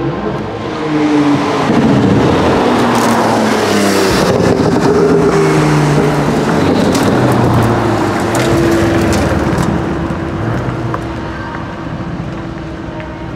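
Mercedes-AMG GT R's twin-turbo V8 accelerating hard away, the engine note rising through the revs, with loud exhaust crackles and pops. After about ten seconds this gives way to quieter, steady engine notes of cars rolling by at low revs.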